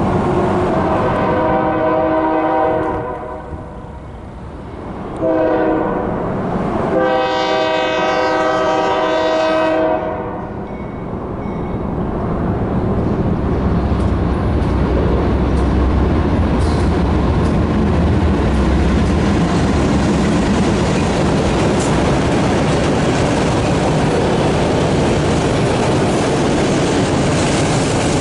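Freight train's diesel horn sounding a long blast, a short one and another long one as the train approaches. Then a heavy low rumble from the locomotives passing, followed by the steady rolling, clicking noise of autorack cars going by.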